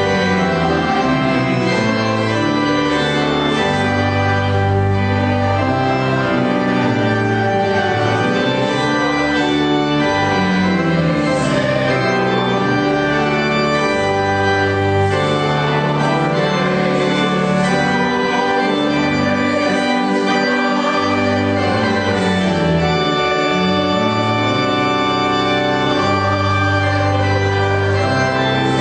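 Church organ playing slow, held chords.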